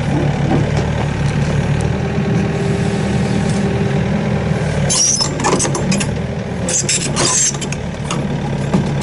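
Heavy diesel engines of a tracked snow groomer and a backhoe excavator running steadily at low speed, as the snowcat creeps onto its crawler tracks. From about five seconds in, sharp noisy bursts of clatter come over the engine hum.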